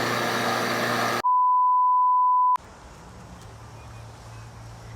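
A pure, steady 1 kHz censor bleep lasting about a second and a half, the loudest sound here. It abruptly replaces a loud, steady noisy rumble with a low hum about a second in. After it comes only a faint low hum.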